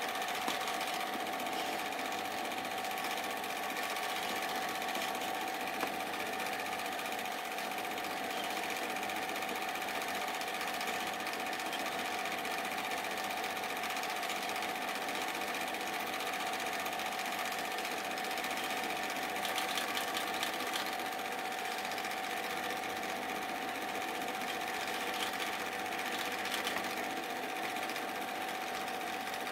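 Super 8 film projector running: a steady mechanical whir of the motor and film transport with a constant hum.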